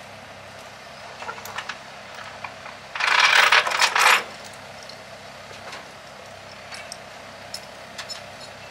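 Metal clinking and clattering, with a few light clicks about a second in and a loud rattling burst about three seconds in that lasts about a second. A steady low engine hum runs underneath.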